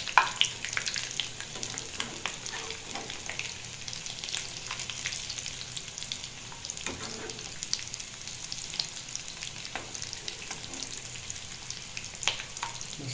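Vermicelli-coated chicken cutlets deep-frying in hot oil in a pan: a steady sizzle full of crackling pops. A few sharper clicks come from the metal spatula and tongs touching the pan as the cutlets are turned, the loudest right at the start.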